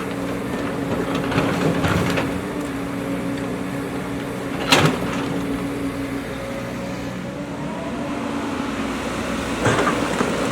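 JCB backhoe loader's diesel engine running steadily under work, with sharp knocks about two seconds in, a louder one near the middle and another near the end.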